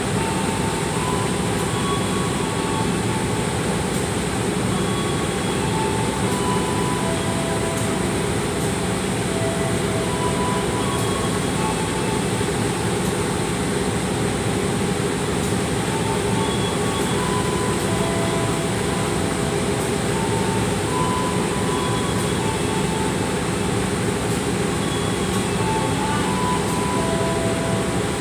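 A diesel-electric locomotive idling steadily at a standstill, a continuous engine drone that does not rise or fall. Short, faint tones at several different pitches come and go over it.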